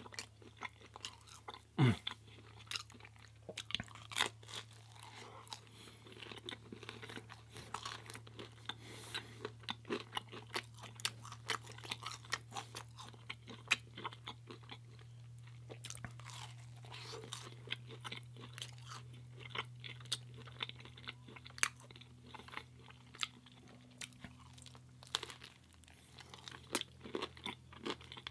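Close-miked chewing of pizza: many short, irregular crunches and mouth clicks from biting and chewing the crust, over a steady low hum.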